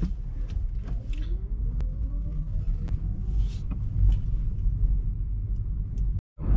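Car engine and road rumble heard from inside the cabin as the car pulls away slowly. The engine note rises as it speeds up, with a few light clicks, and the sound cuts out for a moment near the end.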